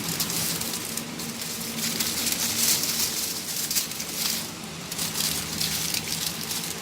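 Aluminium foil crinkling and rustling in irregular crackles as it is folded and rolled tightly around a shawarma wrap.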